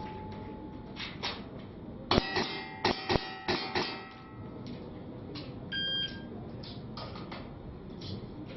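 A rapid string of revolver shots, several a second, for about the first four seconds, then a few more spaced shots. A short electronic buzzer beep sounds just before six seconds in, the stage's timing signal.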